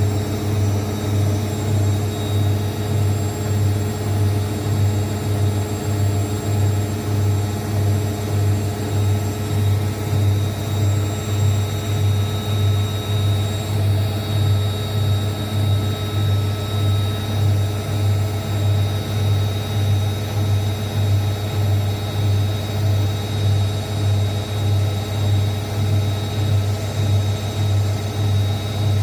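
Zanussi ZWSE680V front-loading washing machine in its final spin: a steady low hum from the drum and motor, pulsing about twice a second, running smoothly on its repaired shock absorbers.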